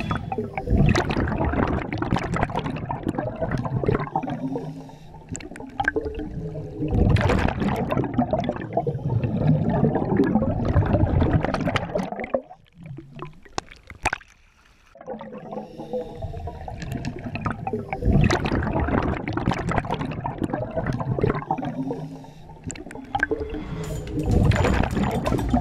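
Scuba regulator exhaust underwater: exhaled air bubbling out in long gurgling bursts of several seconds each, with quieter pauses between breaths and a near-silent lull about halfway through.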